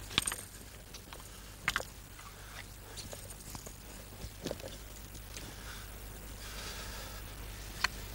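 Wooden spear shafts knocking together in a two-person spear drill: a few sharp clacks at uneven intervals, some doubled, over a low steady hum.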